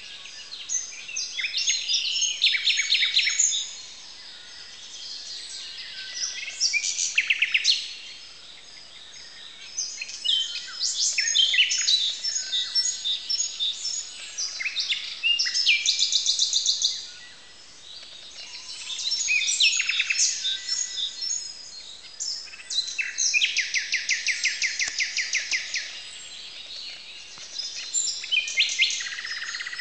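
Dawn chorus of many songbirds, led by a common nightingale singing loud phrases, many built of fast runs of repeated notes, broken by short pauses.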